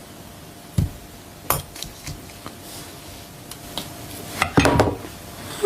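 Sharp knocks and clinks of small objects handled close to the microphone: two single taps a little under a second apart, then a quick cluster of knocks near the end.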